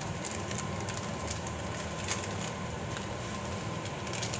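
Steady low rumble and hiss of pork cooking in an aluminium pot on a gas stove, with faint crackles and a few light ticks near the end.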